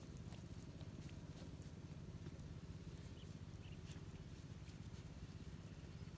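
Quiet open-air ambience: a low steady rumble, with scattered faint clicks and a couple of tiny chirps about three and a half seconds in.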